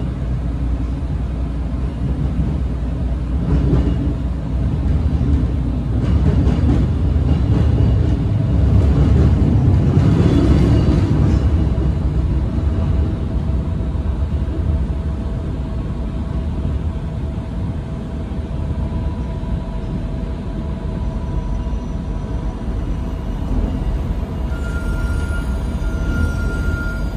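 Inside the cabin of a Stadler GTW diesel light-rail car running: a steady low rumble of the diesel power unit and wheels on rail, with a constant whine, growing louder for a few seconds about eight seconds in. Near the end a short high tone sounds twice.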